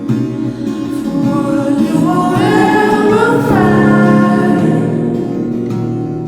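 Background music: a song with sung vocals, layered voices holding a phrase that rises in the middle.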